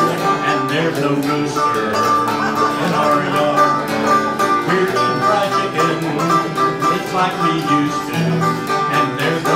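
Banjo-headed mountain dulcimer picked in an instrumental tune, with acoustic guitar backing.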